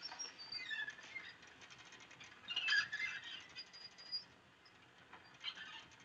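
Faint high squeaks and chirps, several short falling glides, loudest about two and a half to three seconds in.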